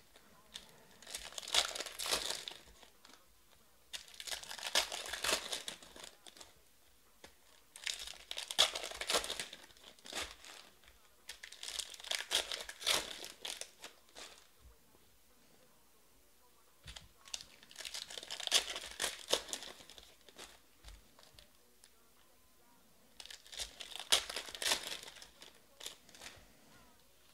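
Foil wrappers of 2020 Panini Prizm Baseball card packs being torn open and crinkled by hand. The sound comes in about six bursts of a couple of seconds each, a few seconds apart.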